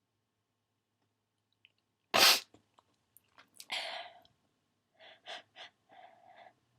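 A person's single loud, sharp sneeze about two seconds in. It is followed by a breathy rush and then a run of short breathy sounds near the end.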